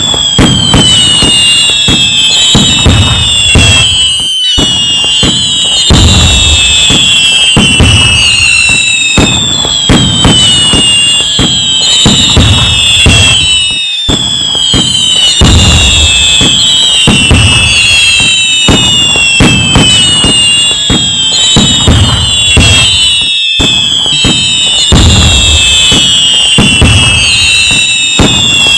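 Fireworks going off in quick succession: many shrill whistles falling in pitch overlap one another above constant crackling and low booms.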